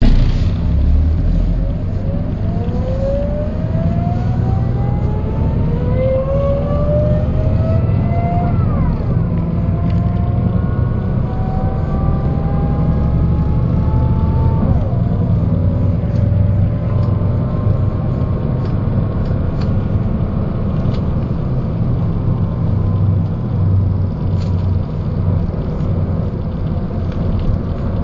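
Mercedes-Benz O408 bus accelerating from low speed, its OM447hLA turbodiesel rumbling under a whine that climbs in pitch and falls back sharply twice, at upshifts of the ZF 5 HP 500 automatic gearbox, about a third and about half of the way in. After the second shift it runs on at a fairly steady pitch.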